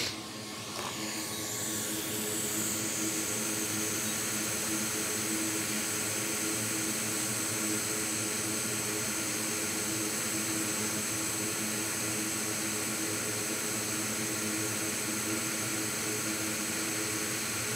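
Hot air rework station blowing on a circuit board. It is a steady rushing noise with a faint hum, which builds over the first two seconds and then holds even.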